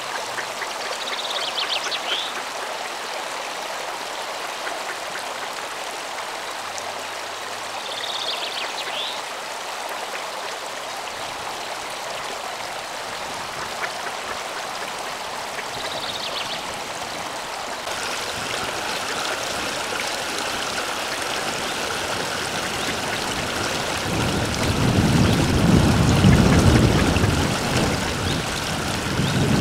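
Water spilling over a low concrete weir into a canal, a steady rushing splash. Wind buffets the microphone with a low rumble for a few seconds near the end.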